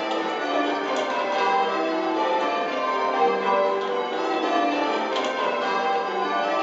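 Eight church bells change ringing, striking one after another in a steady, continuous stream as they ring spliced surprise major, heard from the ringing chamber below the bells.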